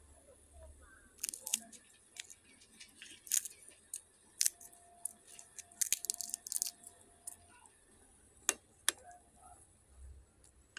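A metal spoon clinking and tapping against a metal cooking pot while soup is stirred: scattered sharp clicks, a quick run of them around the middle and two louder ones near the end.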